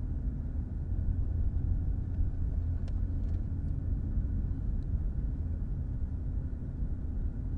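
Steady low rumble of a car heard from inside its cabin, with a few faint ticks about three seconds in.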